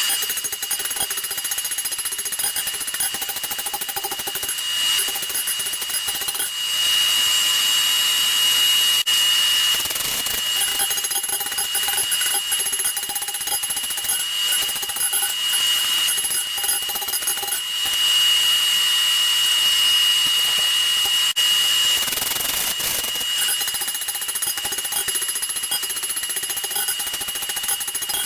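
Forge blower running steadily with a constant high whine, a lower hum coming and going in three long stretches.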